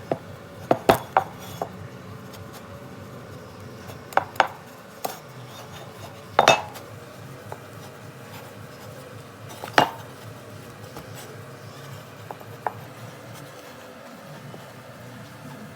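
Hand tool knocking and clinking against a stainless steel pipe: about a dozen irregular sharp metallic taps, the loudest about a second in, around six seconds in and near ten seconds in.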